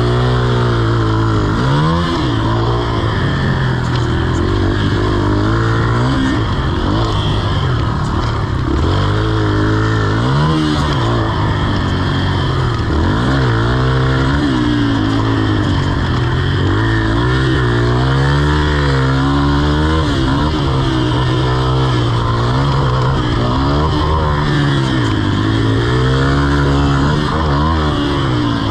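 Yamaha TT-R125's air-cooled four-stroke single-cylinder engine, revving up and dropping back again and again every few seconds as the dirt bike is ridden hard around a track.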